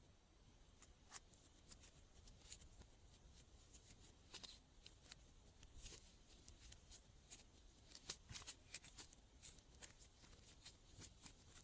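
Slime being worked by hand: quiet, irregular sticky clicks and small crackling pops, several a second.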